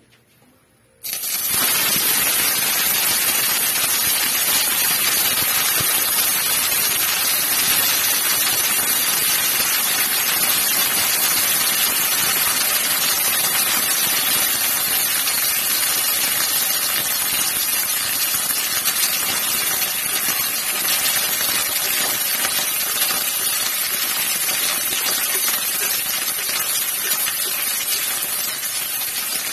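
Cauliflower and carrot pieces sizzling in hot oil in a stainless steel pan, the sizzle starting suddenly about a second in as they are tipped in, then running on as a loud, steady hiss.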